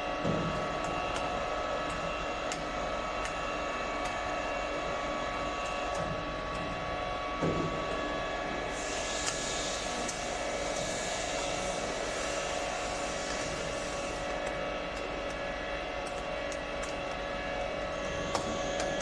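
Servo-driven CNC aluminium profile bending machine running: a steady whine of several held tones over a low hum, with a hiss rising in for several seconds midway and a few faint clicks.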